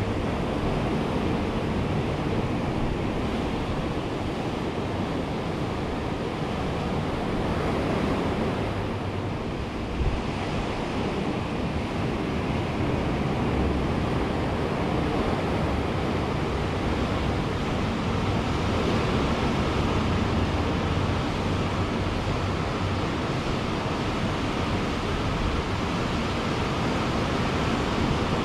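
Ocean surf washing onto a beach in a continuous rolling rush that swells and eases every few seconds, with a low rumble from wind on the microphone and a brief thump about ten seconds in.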